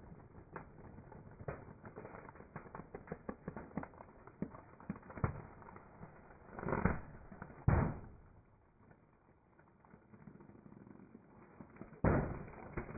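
Inflated modelling balloons squeezed under a car tyre: rubber creaking and crackling in many small irregular clicks, with two louder bursts about seven and eight seconds in and another loud stretch near the end.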